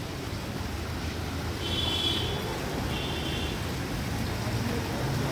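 Courtyard water feature splashing steadily, water falling in a sheet and small fountain jets, over a low rumble, with two brief high-pitched chirps a little after the middle.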